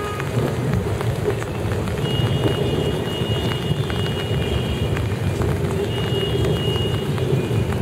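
Heavy rain pouring steadily in a thunderstorm, with a faint thin high tone that comes in about two seconds in and again near the end.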